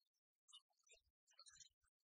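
Near silence with faint scattered clicks.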